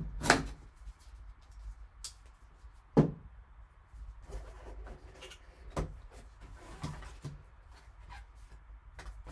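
Gloved hands opening a sealed trading-card box: light rustling of plastic wrap, cardboard and paper, with a few sharp knocks as the box is handled, the loudest just after the start and about three seconds in.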